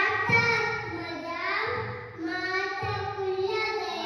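A young boy chanting a shloka in a sing-song voice, drawing out long held notes with a short break for breath midway.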